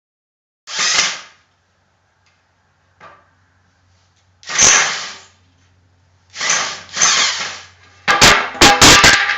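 Work noises: three short bursts of rasping noise, then a quick run of four or five sharp knocks near the end.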